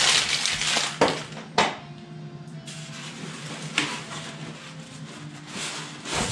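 Clear plastic packaging crinkling at first, then a few sharp clicks and knocks as small plastic grinder parts and a styrofoam packing tray are handled.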